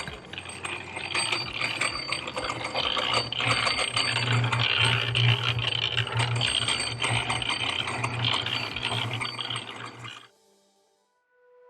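Mortar being mixed: a gritty, rattling scrape full of small clicks, with a steady low hum under it, cutting off abruptly near the end.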